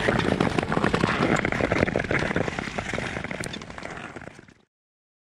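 Nordic touring skate blades scraping over rough natural ice: a dense crackle of small clicks over a steady rush, fading out about four seconds in and ending abruptly.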